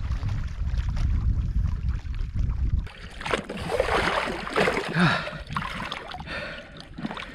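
A low rumble for about the first three seconds, then lake water splashing and sloshing around a person swimming.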